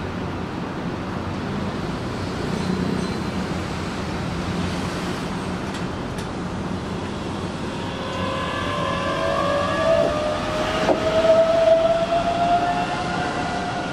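Keihan 9000-series electric train pulling away from a platform: a steady low hum at first, then from about eight seconds in a whine from its traction motors that rises steadily in pitch as it accelerates.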